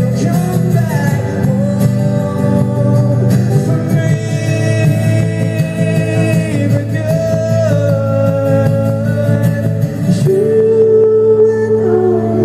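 Live amplified acoustic guitar strummed under a man's voice singing long held, gliding notes without clear words; about ten seconds in, a new, stronger held note begins.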